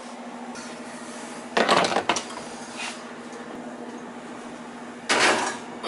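Metal clattering as the oven door is opened and the oven rack and a lidded pot are handled: a cluster of clanks about a second and a half in, then a louder rattle near the end. Under it runs the steady hum of a kitchen fan.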